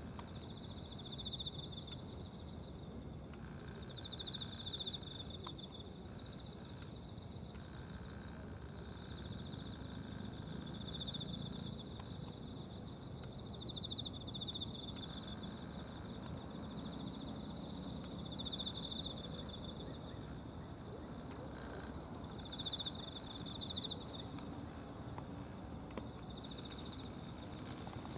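Insects trilling in short bursts at irregular intervals of a few seconds, over a steady high-pitched insect drone and a low background rumble.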